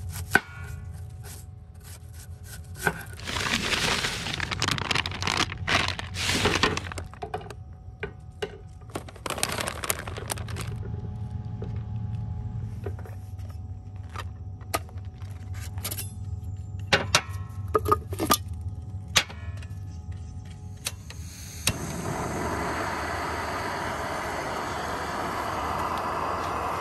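Sharp knife strokes on a wooden cutting board and bursts of rustling, then, about 22 seconds in, a small backpacking canister gas stove lit under a pot, its burner hissing steadily.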